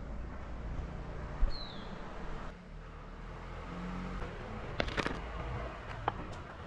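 Street ambience with a steady low rumble. About a second and a half in there is a bump, followed at once by a short high chirp that falls in pitch. A few sharp clicks come around five seconds in.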